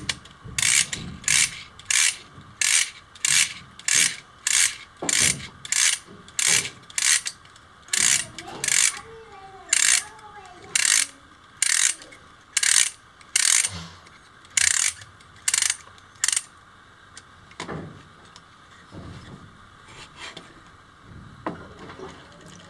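Home-made 3D-printed wind-up fan being wound by hand: its winding gears rasp in short bursts, about three every two seconds. The bursts then come more slowly and weaker for the last several seconds.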